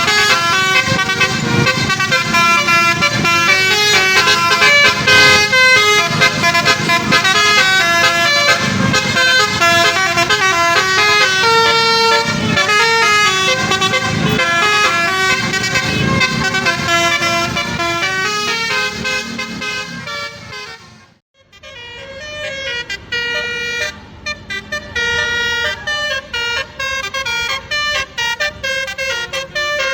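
Tour bus 'telolet basuri' musical horns playing a quick tune, one pitched horn note after another. About two-thirds of the way through the sound fades out briefly, then the horns start again with fewer, more spaced notes.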